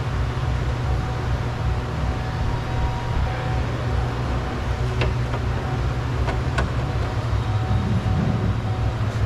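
Steady low rumble of background noise, like traffic or a running vehicle, with a faint steady tone above it and a few light clicks about five and six and a half seconds in.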